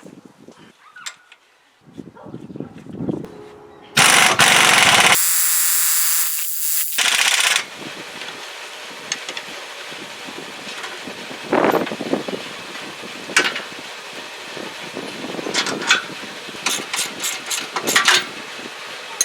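A few light knocks, then a power tool starts about four seconds in and runs loudly for about three and a half seconds. After it stops, a steady mechanical hum continues, with scattered metallic clanks and clicks of tools on parts.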